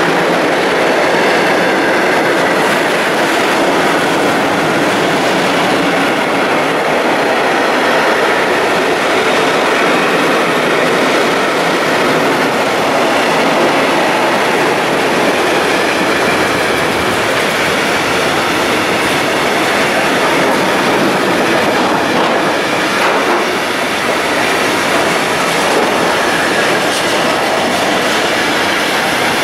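Freight train of container and tank-container wagons running past at speed: a steady, loud noise of steel wheels on the rails.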